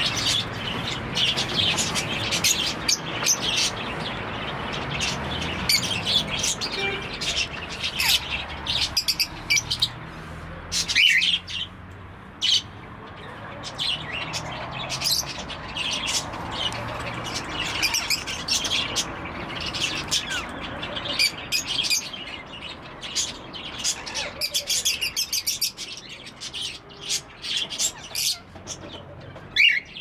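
Many caged parrots in an aviary, cockatiels and rose-ringed parakeets, chirping and calling: a dense, constant overlap of short high chirps. A few louder calls stand out, one about eleven seconds in and another at the very end.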